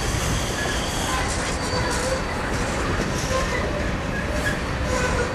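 Covered hopper cars of a freight grain train rolling past: a steady rumble of wheels on rail, with brief squeals here and there.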